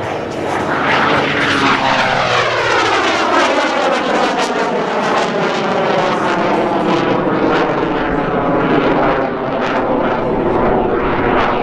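Screamin' Sasquatch jet Waco biplane flying past and climbing away: its Pratt & Whitney R-985 nine-cylinder radial engine and propeller, mixed with the GE CJ610 turbojet under its belly. It runs loud at full power, its pitch falling steadily over the first few seconds as it goes by, then holding steadier as it climbs.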